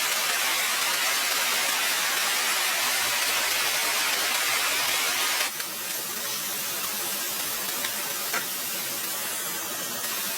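Steady hissing noise that drops suddenly a little past halfway to a quieter hiss, with two faint clicks near the end.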